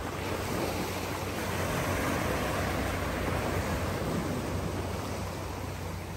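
Sea waves washing against a rocky shore: a broad, steady rush that swells over the first couple of seconds and slowly eases again, over a low wind rumble on the microphone.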